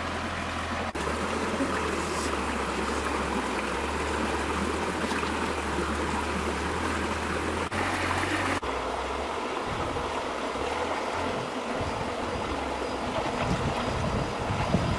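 Shallow stream running and trickling over rocks, a steady rush of water that changes abruptly a few times where the footage is cut.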